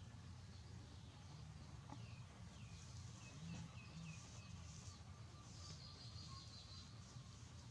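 Faint high chirps from a small animal: a run of about seven short, falling chirps, then a thinner, higher trill, over a low background hum.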